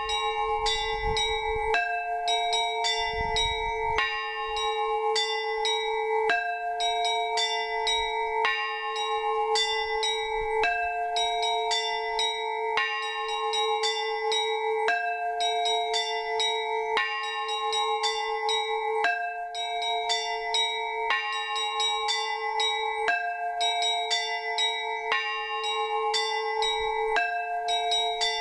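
Orthodox church bells ringing a trizvon peal: several small bells struck in quick succession over the steady ring of a larger bell, in a figure that repeats about every two seconds.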